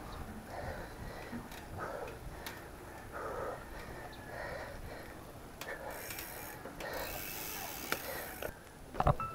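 Mountain bike ticking and clicking as it rolls along a concrete road. A burst of hiss comes about six to eight and a half seconds in, and a couple of sharp knocks come near the end.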